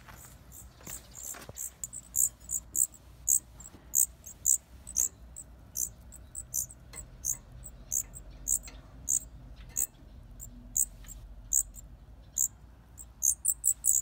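Nestling songbirds begging in the nest: a steady run of short, high-pitched cheeps, about two or three a second, as they gape for food.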